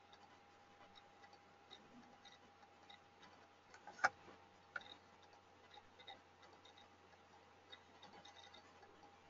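Near-silent room tone with a faint steady hum and faint, scattered ticking. One sharp click about four seconds in, and a smaller click soon after.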